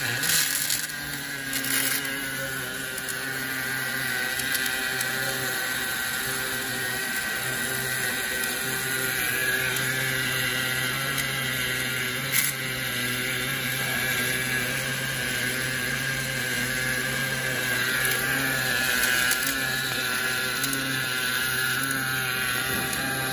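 Automatic wire-fed arc welder laying a girth weld in the deep groove between a hydraulic cylinder rod and its rod eye. The arc gives a steady hiss over a continuous machine hum, with a short sharp click about twelve seconds in.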